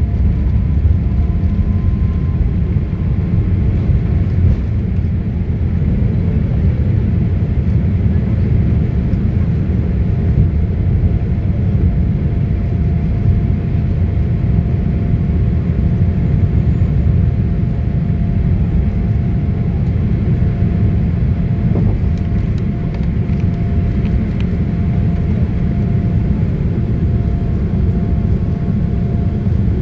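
Cabin noise of a Boeing 787-8 at takeoff thrust, heard from a window seat beside the wing engine: a loud, steady low rumble of the engines and airflow with a faint steady tone above it, through liftoff and the first part of the climb.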